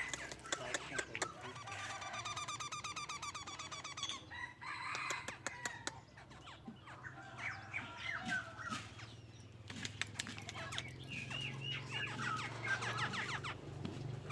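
Birds calling and singing: a fast run of repeated chirps about two seconds in, scattered calls, and short whistled notes near the end, with fowl-like clucking mixed in.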